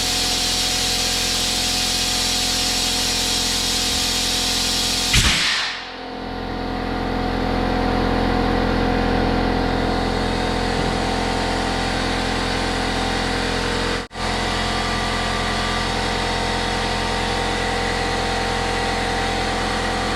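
Air compressor running steadily while compressed air hisses into a tractor tire. About five seconds in, the hiss ends with a short loud burst, and the compressor's motor hum carries on.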